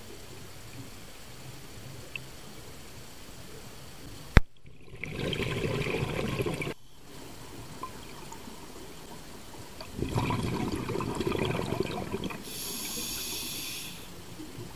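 Scuba diver breathing through a regulator underwater: two bursts of exhaled bubbles, about five and ten seconds in, then a hissing inhale through the regulator near the end. A single sharp click comes just before the first exhale.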